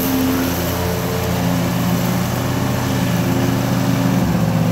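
Zero-turn riding lawnmower engine running steadily under way, its engine note shifting slightly near the end.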